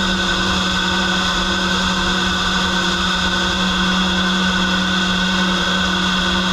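CNC lathe boring a steel part with a KM50 boring bar and carbide insert under flood coolant. The spindle and cut give a steady tone over the spray of coolant.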